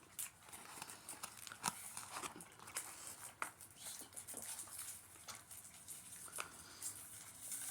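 Quiet eating and food-handling noises: scattered small clicks and crinkles of fast-food paper packaging, with chewing.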